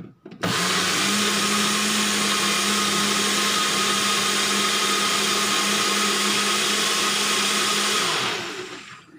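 Personal bullet-style blender running, its cup held down on the motor base, blending basil, garlic and oil into pesto. It starts abruptly about half a second in, runs with a steady motor hum, then winds down over the last second as it is released.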